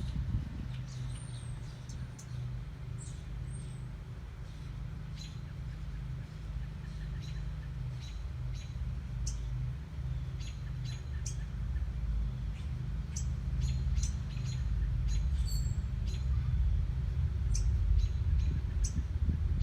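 A bird chirping in short, high, separate calls, irregularly spaced throughout, over a steady low rumble that grows louder toward the end.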